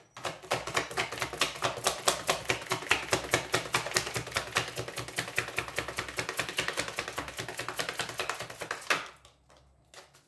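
A tarot deck being shuffled in the hands: a quick, even run of card-on-card flicks, many a second, that stops about nine seconds in, followed by a few single taps.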